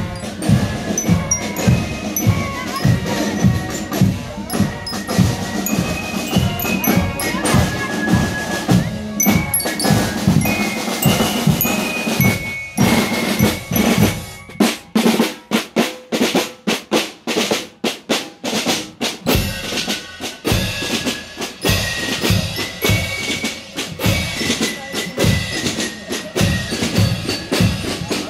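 Marching band playing a march in a parade: a bass drum on a steady beat and snare drums under a high melody. A little past halfway the bass drum and melody drop out for several seconds, leaving snare drums rattling alone, then the full band comes back in.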